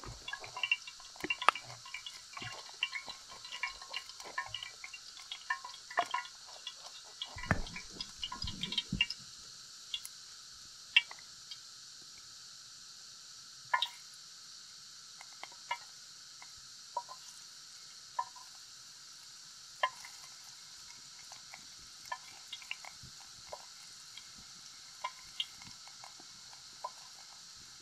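Water heating in an aluminium mess tin over a campfire, with small pops and ticks over a steady high hiss. The pops come thick in the first several seconds and then sparser, with a short low rumble about eight seconds in.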